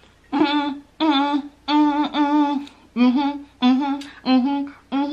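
A woman humming a gospel tune: a string of about eight short held notes, each roughly half a second long with brief breaks between them, staying close to one pitch with small dips and bends.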